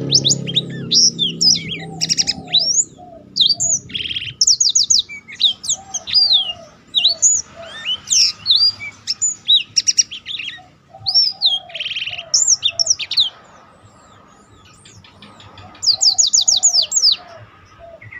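Blackthroat (black-throated canary) singing its rolling song: a fast run of high chirps, sweeping whistles and buzzy trills, with a short pause about three-quarters of the way through before a quick trill near the end.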